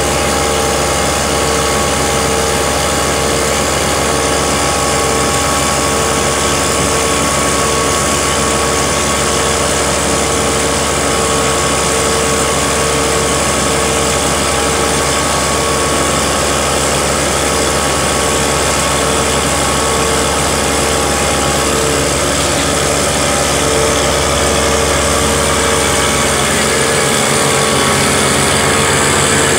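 Case IH Puma 225 CVX tractor's six-cylinder diesel running steadily under load, driving a mill that grinds wet corn kernels and presses them into big bags. A steady mechanical drone with an even, regular throb.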